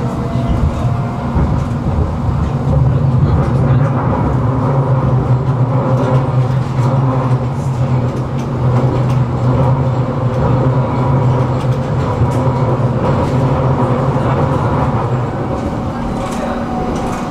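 Tram running along its line, heard from inside the passenger car: a steady low hum of the traction motors under the rolling of wheels on rail. The hum eases off near the end.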